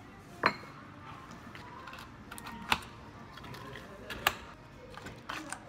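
Plastic lids being snapped onto two plastic iced-drink cups: three sharp clicks, with a few fainter clicks and rattles between them.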